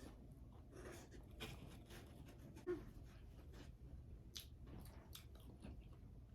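Faint chewing and mouth sounds of a person eating, with a few small clicks over a low steady hum.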